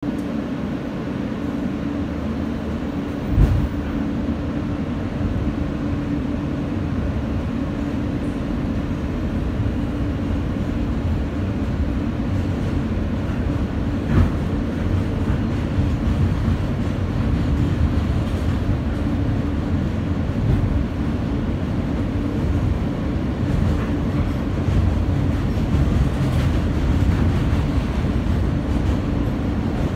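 Steady rumble of an R160 subway car in motion, heard from inside the car. Two sharp knocks stand out, one about three and a half seconds in and another around fourteen seconds.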